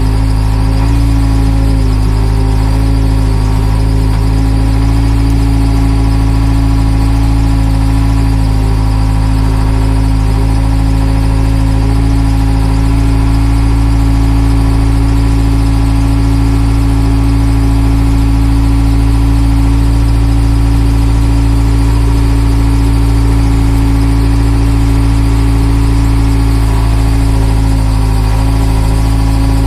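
JCB backhoe loader's diesel engine running steadily under way, heard from inside the cab, with an even drone and a steady tone that hardly change in pitch.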